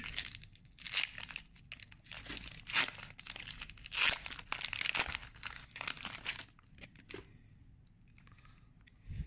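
Foil Pokémon card booster pack wrapper crinkling and tearing as it is pulled open by hand, in uneven rustling bursts for about the first six seconds. A light knock comes near the end.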